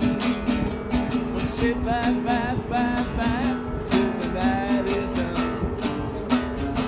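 Acoustic guitar strummed in a steady rhythm, chords ringing between the strokes, as an instrumental break between sung verses.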